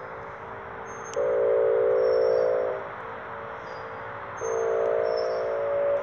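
Whelen WPS 2810 outdoor warning siren sounding its air-horn tone: a steady chord of horn notes in blasts about a second and a half long, with pauses of about the same length between them.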